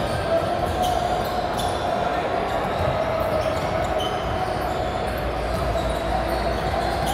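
Echoing gym ambience during basketball play: basketballs bouncing on a hardwood floor as short sharp knocks, over a steady murmur of many voices.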